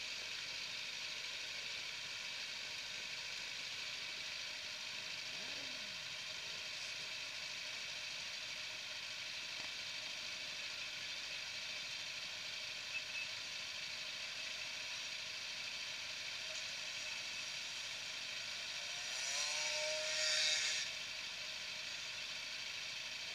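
Steady faint hiss of outdoor background noise. About nineteen seconds in, a louder sound with a wavering pitch rises for about two seconds and then stops.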